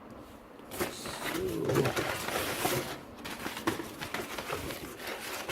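Plastic mount parts and packaging being handled, rustling and clicking. A short, low cooing call comes about two seconds in.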